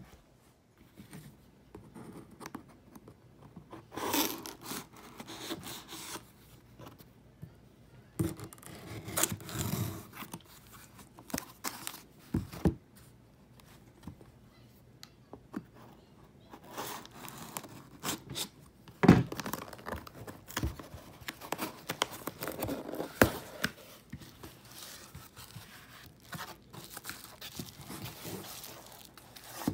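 A cardboard shipping box is cut open with a kitchen knife: packing tape and cardboard tearing, with scrapes and a few sharp knocks as the box is handled. The bubble wrap around the disc case crinkles near the end.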